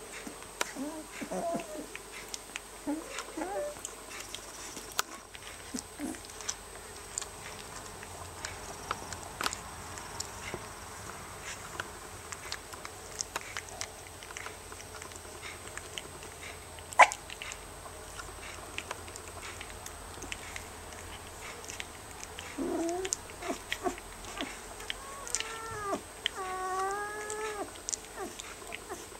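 Eighteen-day-old rough collie puppies whimpering and squeaking, over soft scuffling and small clicks as they crawl over each other. Near the end comes a run of wavering whines, and there is one sharp click about midway.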